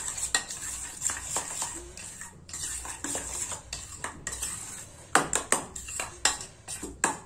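Metal spoon stirring and scraping a wet mash of boiled elephant foot yam in a stainless steel bowl, with irregular clinks of the spoon against the bowl's sides that come thicker and louder about five seconds in.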